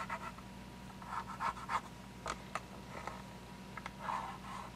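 Pencil scratching in irregular short strokes, tracing around a component on a project box lid to mark the outline of a cutout.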